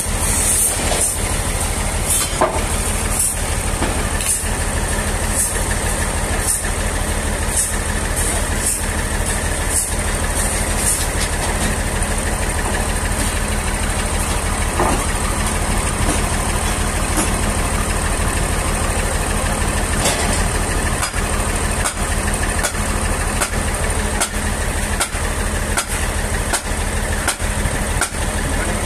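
Engine running steadily at idle, with scattered clicks and knocks. A high hiss rises and falls in pulses through roughly the first ten seconds.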